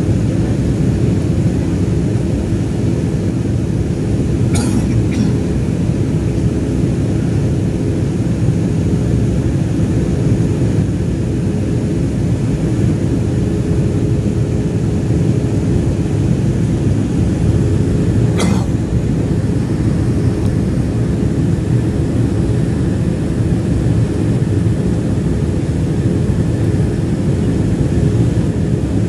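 Cabin noise of an Embraer 190 taxiing, heard from a passenger seat: a steady, loud drone from its General Electric CF34-10E turbofans and the airframe, with a faint steady hum. Two brief sharp clicks, about four and eighteen seconds in.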